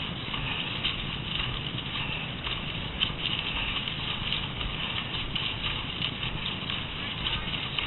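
Cross-country skis swishing and scraping over packed snow, with scattered taps and crunches of ski poles being planted, over a steady low rumble.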